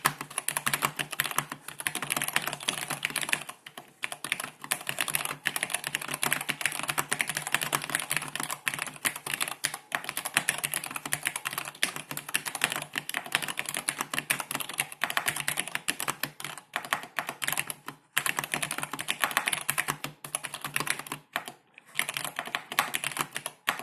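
Fast continuous typing on a Cherry G80-1501HAD mechanical keyboard with vintage Cherry MX Black linear switches, a dense stream of key clacks with a few short pauses. Its stabilizers are lubed and clipped.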